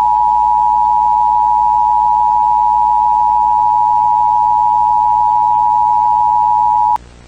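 Emergency Alert System attention signal: two steady tones sounding together, the 853 Hz and 960 Hz dual-tone alert, held unbroken for about seven seconds and then cutting off suddenly.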